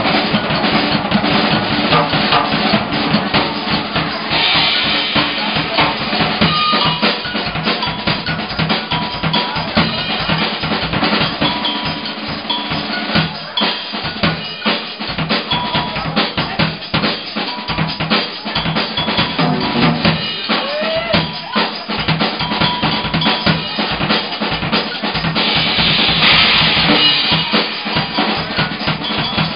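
Live funk band with the drum kit playing a busy groove of kick, snare and rim hits, backed by the band. The trombone is silent for most of it. A cymbal wash comes in twice, once early and once near the end.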